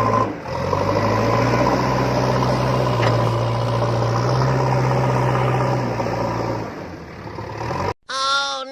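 Vehicle engine running steadily with a low hum, fading away about seven seconds in. Just before the end a short sound with gliding tones begins.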